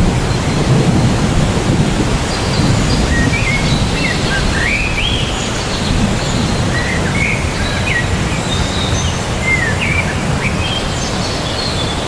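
Heavy rain falling steadily on a tree, with a low rumble of thunder, heaviest in the first second or so. Birds chirp in short rising and falling calls through the middle.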